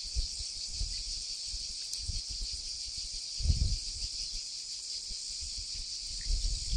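Quiet outdoor ambience: a steady high hiss with scattered low bumps, the clearest about three and a half seconds in.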